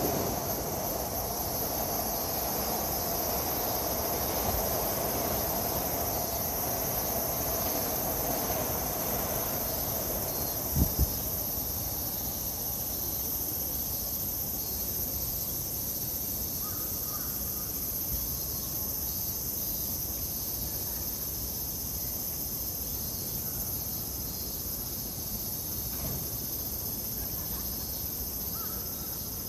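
Steady outdoor city ambience: a constant low background hum with a steady high-pitched drone over it. A mid-pitched rumble fades away over the first ten seconds, and two short low thumps come about eleven seconds in.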